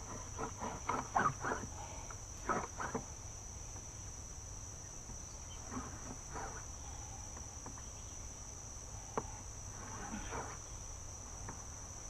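Unsharpened Glock field knife's carbon-steel blade sawing and scraping at a plastic bucket in short strokes, a quick run of them in the first three seconds and a few more later, with a sharp click about nine seconds in. A steady high insect drone carries on behind.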